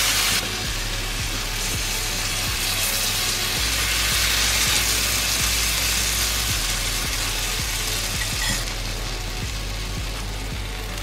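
Semolina-and-vegetable chilla batter sizzling on a hot ghee-greased tawa as it is spread out with a steel ladle. The sizzle eases off about eight and a half seconds in.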